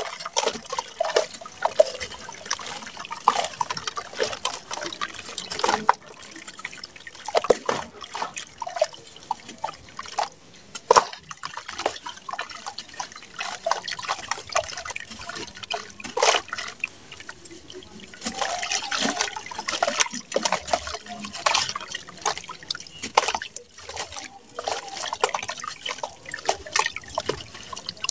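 A dry sand slab crumbled by hand over a basin of water. Grains and crumbs trickle and patter into the water amid many irregular small crunches.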